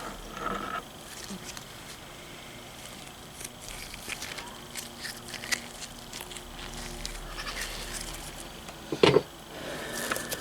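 Small clicks and scrapes of Triumph T140 gearbox parts being handled as the gearbox is stripped, with one louder clunk about nine seconds in.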